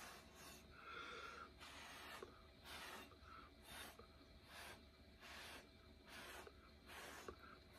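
Short, faint puffs of breath blown through a plastic drinking straw onto wet acrylic paint, about one to two puffs a second, a few with a brief whistling tone.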